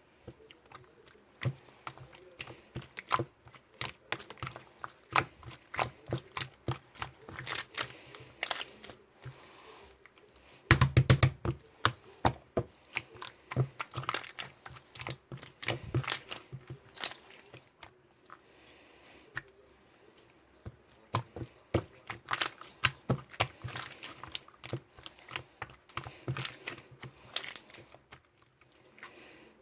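An irregular run of small clicks and crackles, with a dense, louder cluster of them about eleven seconds in.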